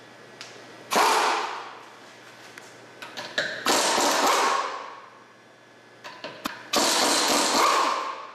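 Pneumatic impact wrench run in three bursts of a second or so each, loosening a car wheel's lug nuts. A few light clicks come just before the second and third bursts.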